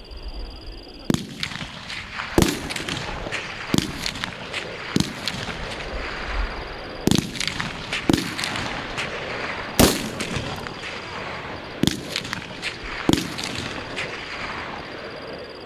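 Live rifle fire on a shooting range: several rifles firing single shots at irregular intervals, beginning about a second in, with about ten loud reports among many fainter ones, each trailing off briefly.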